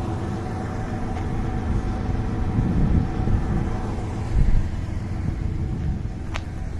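A vehicle engine idling steadily, with one sharp click about six seconds in.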